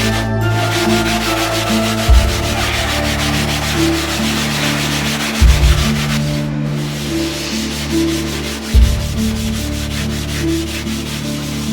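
A coarse 120-grit silicon carbide stone being rubbed flat on a glass plate: a steady, gritty scraping that stops briefly a little past halfway. Background music with a low bass line that changes about every three seconds runs underneath.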